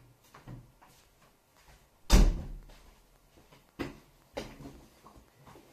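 A wooden door bangs shut with one loud thud about two seconds in, followed by a few lighter knocks and bumps.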